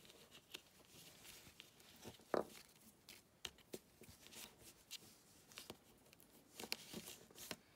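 Faint rustling and light scattered ticks of cardstock and baker's twine being handled as the twine is wrapped around a card panel, with one sharper tick about two and a half seconds in.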